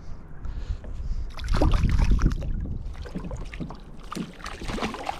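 A small trevally being handled and released over the side of a kayak: a rush of splashing water, loudest about a second and a half in, with scattered knocks and clicks of handling against the hull.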